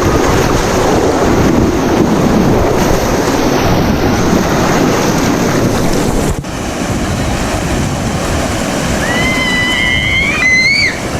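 Loud, steady rush of flowing water, with wind buffeting the microphone. A high, held tone with overtones comes in near the end.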